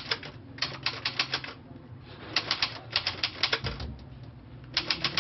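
Keys of a 1945 manual typewriter striking in quick runs of several strokes, with short pauses between the runs.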